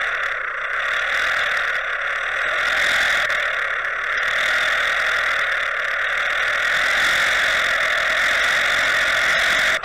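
Steady underwater drone of a trolling boat's outboard motor mixed with rushing water, heard through a camera towed beneath the surface.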